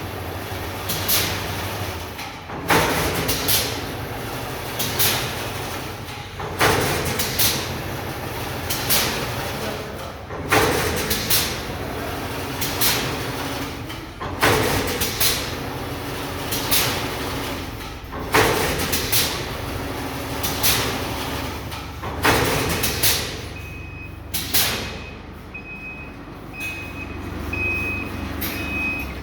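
Kontelmak YGZ-220 automatic chain link fence machine running over a steady mechanical hum, with a regular clatter about every two seconds as it works through its weaving cycle. Near the end the clattering stops and a pulsing high beep sounds.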